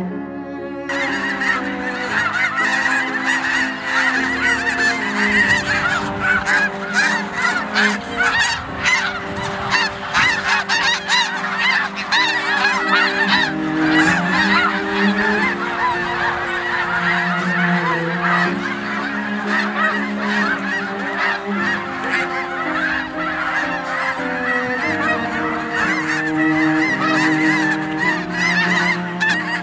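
A large flock of snow geese calling, with many overlapping honks going on without a break; the calls begin about a second in.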